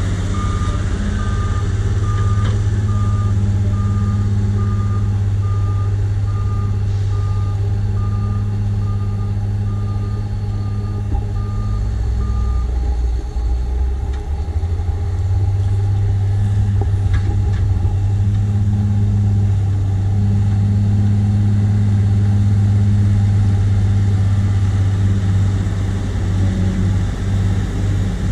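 JCB 436ZX wheel loader's Perkins 1006-6T six-cylinder turbo-diesel running steadily under load. A reversing alarm beeps at an even pace and stops a little before halfway, when the engine dips briefly and then comes back up.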